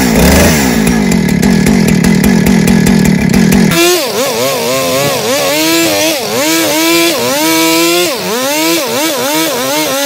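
Husqvarna two-stroke chainsaw running unloaded, then about four seconds in it opens up and cuts into a tree stump, the engine pitch dipping and recovering again and again as the chain bites into the wood. It is a test cut on a freshly tightened chain.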